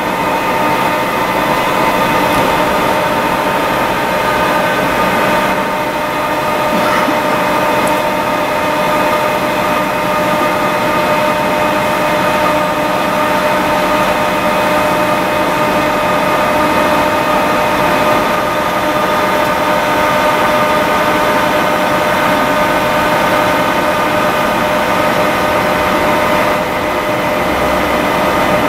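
XYZ ProTurn 1745 CNC lathe running, a steady mechanical whine with several held tones over a hum.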